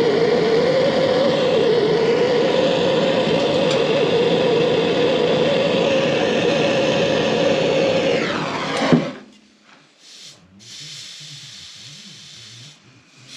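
Handheld gas blowtorch burning steadily with a loud hiss as it heats a copper soldered joint at a radiator valve. About nine seconds in it is shut off: its sound falls in pitch and ends with a pop. Quieter rubbing of a cloth wiping the hot joint follows.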